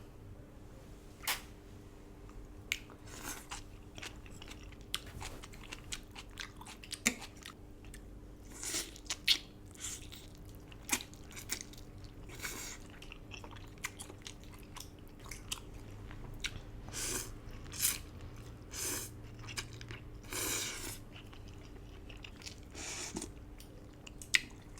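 Close-miked mouth sounds of a person eating duck noodle soup: chewing with irregular wet smacks and clicks, and a few brief louder mouthfuls.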